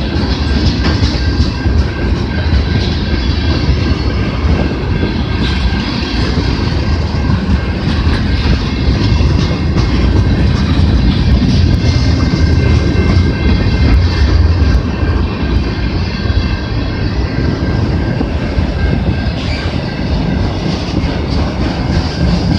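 Freight cars of a CN train rolling steadily past, steel wheels clacking over the rail joints with a continuous rumble and a faint high wheel squeal.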